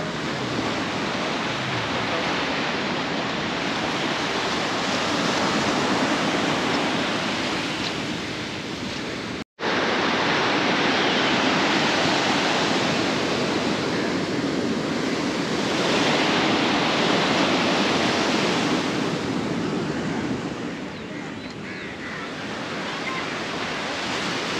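Sea waves breaking on a beach: a steady wash of surf that swells and eases every few seconds. The sound cuts out for an instant about nine and a half seconds in.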